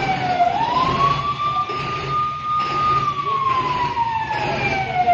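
Wailing siren (hooter) fitted on a tipper truck: its pitch sweeps up quickly just after the start, holds, then slides slowly down over several seconds and sweeps up again at the end. A low steady hum runs underneath.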